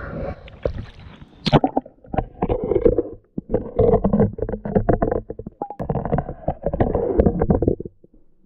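Water sloshing, knocking and rubbing against a camera as it is pushed down through an ice-fishing hole. The sound is muffled and comes in several bursts, then stops abruptly about eight seconds in.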